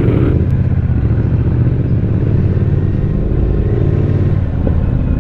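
Triumph Speed Twin parallel-twin engine running steadily under way, breathing through a decat X-pipe that replaces the catalytic converter.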